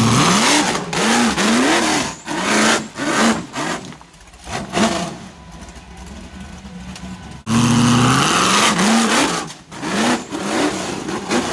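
Rock buggy's engine revving hard in repeated throttle bursts as it climbs a steep dirt bank, the pitch rising and falling with each blip. It drops quieter around the middle, then jumps back to full throttle about two-thirds of the way through.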